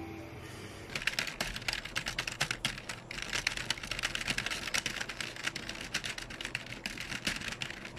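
Keyboard-typing sound effect: rapid, irregular clicking keystrokes that start about a second in, with a brief break near three seconds. It accompanies a caption being typed out on screen.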